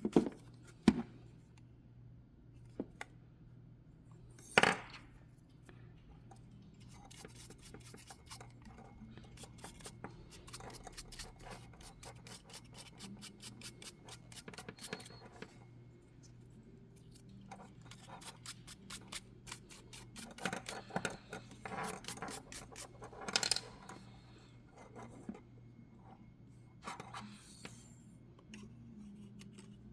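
Hard plastic clicks and knocks, and runs of rapid scraping and scrubbing, from a hair dryer being taken apart and cleaned by hand. The hair dryer is not running.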